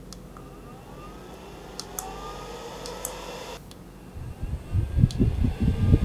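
Hoco HX21 handheld fan's motor whining and rising in pitch as it speeds up, with a few sharp clicks. About four seconds in, its airflow starts buffeting the microphone with a loud, gusty rumble.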